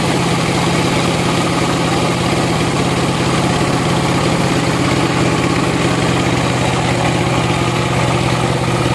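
Sawmill machinery running steadily: a continuous engine-like drone that holds the same pitch and level throughout.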